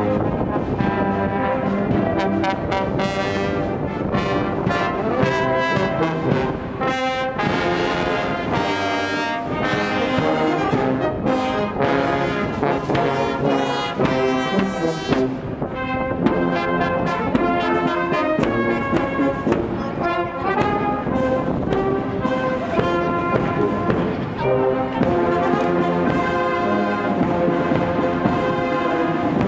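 Marching brass band playing a tune, with held brass notes over regular bass drum strikes, as the band passes close by.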